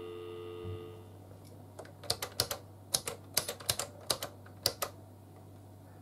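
UK dial tone from the handset of a 1981 GPO 782 touchtone telephone, a steady low hum that stops about a second in. Then a quick, uneven run of roughly a dozen sharp clicks as the phone's press buttons are pushed to dial out a number.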